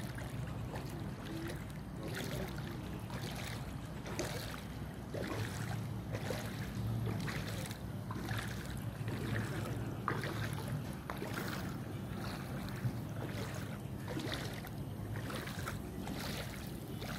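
Swishing and sloshing of floodwater around legs wading through it, a stroke roughly every half second to second at walking pace, over a steady low hum.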